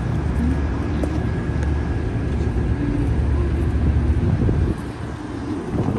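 Outdoor city street noise picked up on a phone microphone while walking: a steady low rumble of traffic and wind, easing briefly near the end.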